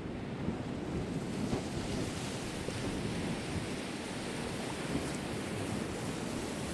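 Sea waves breaking and washing on the shore, with wind rumbling on the microphone; the hiss of the surf swells about a second in.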